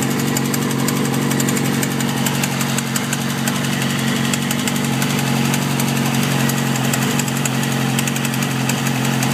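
2007 Yamaha R6's inline-four engine idling steadily with a fast, regular ticking over the top. The owner wonders whether it is the cam chain tensioner or low oil.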